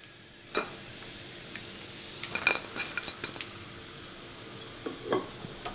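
Slotted spoon and other kitchen utensils knocking and clinking against the frying pan and plate, a few separate short clicks, as fried chicken pieces are lifted out of the oil.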